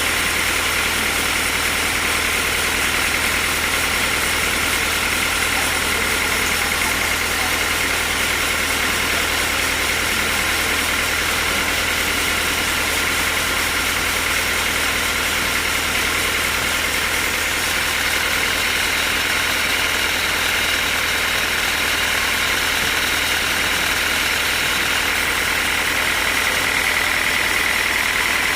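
Sawmill machinery running steadily: a constant low hum under an even hiss with a steady high whine, without knocks or pauses.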